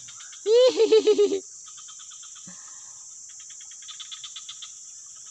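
Steady high drone of insects, with a loud wavering call of several quick notes about half a second in, then faint rapid chirping.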